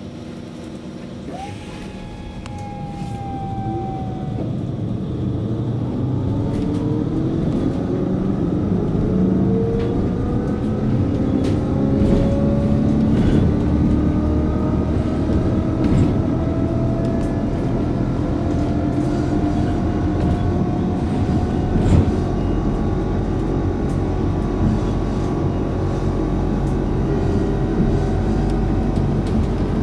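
Hess Swisstrolley 3 articulated trolleybus from on board: its electric traction drive whines up steadily in pitch as the bus pulls away and gathers speed, over growing rolling and rattling noise. After about fifteen seconds it runs on at a fairly steady speed, with occasional clicks and knocks.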